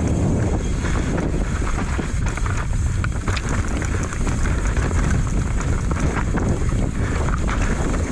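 Wind buffeting a helmet-mounted GoPro Session's microphone at speed, over the rattle and clatter of a Commencal Meta AM 29 mountain bike running down a rough downhill trail, with many small sharp knocks from the tyres and chassis over rocks and roots.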